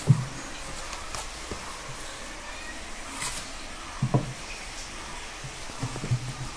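Kittens scuffling in a wooden cabinet: a few soft thumps of paws and bodies against the wood, near the start, about four seconds in and near the end, with a brief rustle a little past three seconds.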